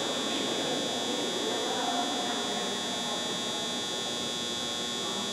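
A steady high-pitched whine with no breaks, over faint, indistinct voices in a large room.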